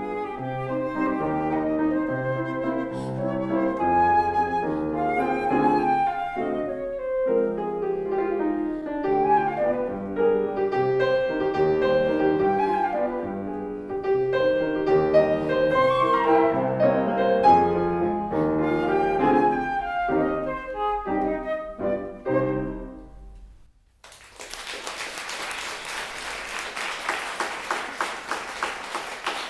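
Flute and piano playing a waltz, the final notes dying away about 23 seconds in. After a moment's pause, an audience starts applauding.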